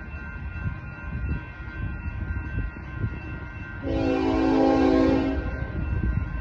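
Railroad crossing bells ringing steadily while the approaching Union Pacific GE ES44AC locomotive sounds one loud horn blast, a chord of about a second and a half, just past the middle, over a low rumble.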